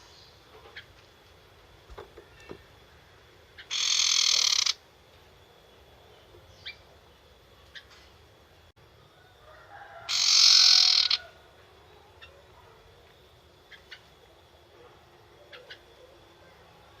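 A young sirtu bird giving its harsh rattling 'nyetater' call twice, each rattle about a second long and some six seconds apart, with faint short chirps in between.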